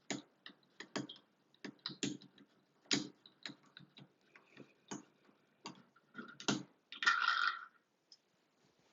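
Irregular sharp clicks and taps of a Phillips screwdriver backing out the long screws of a shower faucet faceplate, with a short scraping sound about seven seconds in.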